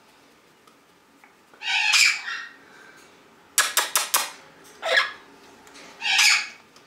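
Amazon parrot calling: a harsh squawk about two seconds in, a quick run of about five sharp clicks around four seconds, then two shorter squawks a second apart near the end.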